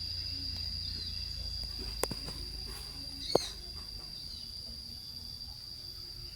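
Insects keep up a steady, high-pitched drone while birds give short, scattered chirps. Two sharp clicks stand out, about two seconds and three and a half seconds in.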